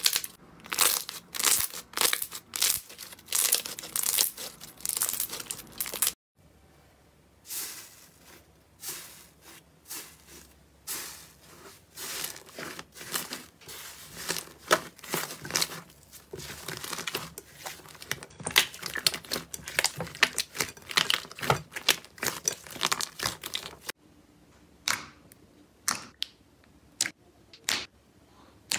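Hands squeezing, stretching and pressing thick slime, which gives off dense, irregular sticky crackles and small pops. There are brief quieter gaps where one batch of slime gives way to the next.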